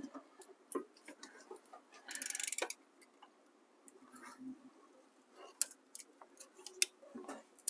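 Ratchet wrench clicking in a quick even run about two seconds in, with scattered light metallic clicks and taps around it, while head bolts on a HEMI V8 cylinder head are tightened a further 45 degrees.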